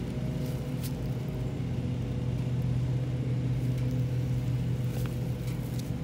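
An engine running steadily, a low even hum, with two faint clicks, one about a second in and one near the end.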